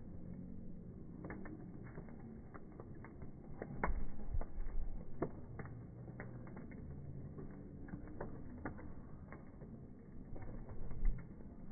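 Bonfire wood crackling, with irregular sharp pops and snaps. A low rumble swells about four seconds in and again near the end.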